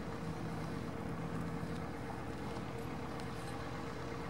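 Cessna 152's four-cylinder Lycoming O-235 engine and propeller running steadily at low taxi power as the plane rolls along the taxiway.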